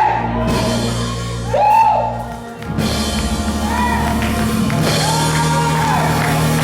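Gospel church music: held keyboard chords with voices singing and shouting over them. The chord changes about two and a half seconds in.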